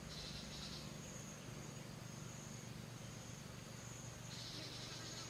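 Faint insects trilling: a high trill that comes and goes in stretches, with a second, lower trill briefly near the start and again near the end, over a steady low hum.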